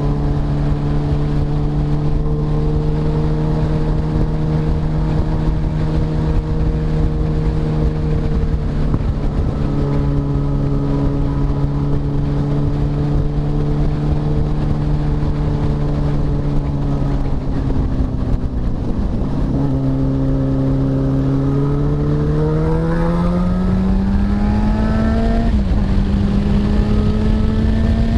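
Motorcycle engine running at a steady cruising speed, with low wind rumble on the microphone. Near the end the pitch dips as the bike slows, then rises as it accelerates again.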